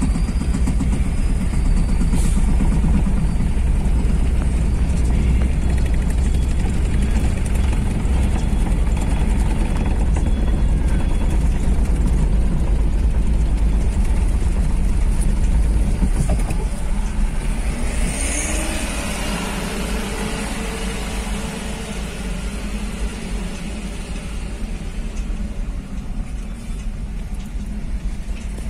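Vehicle and truck engines running inside a ferry's enclosed vehicle deck as vehicles drive down the ramp and onto the deck. The low rumble eases a little past halfway, with a short hiss around then.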